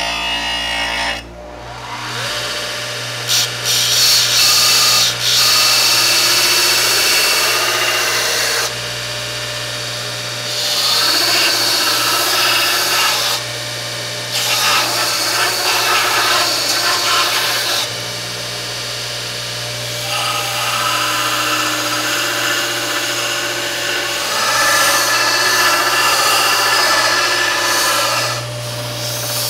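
JET bench belt sander running with a steady motor hum, while the cleaver's handle is pressed against the moving belt in repeated passes of several seconds each. Each pass brings a loud grinding hiss that drops away between passes.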